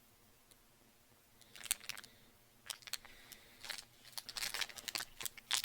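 A chocolate-bar wrapper crinkling as it is handled and torn open. Scattered crackles start about a second and a half in and come thicker near the end.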